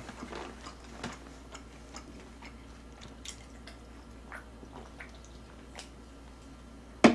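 Faint small mouth and swallowing sounds and scattered light ticks while drinking from a soda can, with one sharp knock near the end.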